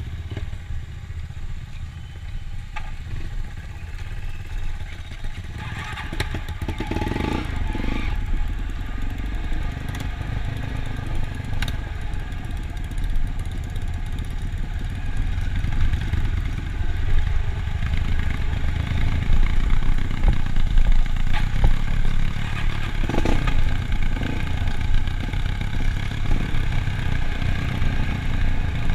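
A vehicle engine running steadily as it travels, a low rumble with occasional knocks and rattles. It grows louder over the first two-thirds.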